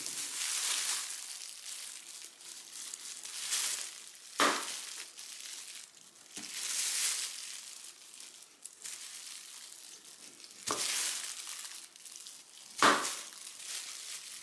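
A kitchen knife shaving the peel off a mango in repeated hissy swishes, with disposable plastic gloves crinkling. There are three sharp knocks against the plastic cutting board, about four seconds in, near eleven seconds, and near the end.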